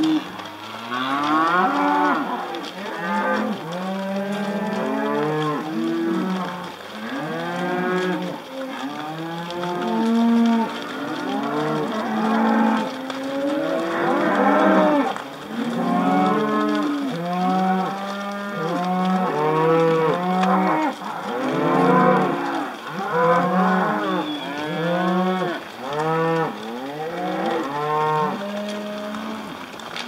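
A herd of beef cattle mooing almost without a break, many calls overlapping, each rising and then falling in pitch.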